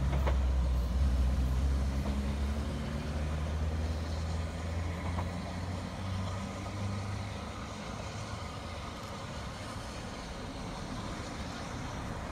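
A train running away along the line, its low rumble fading slowly as it recedes.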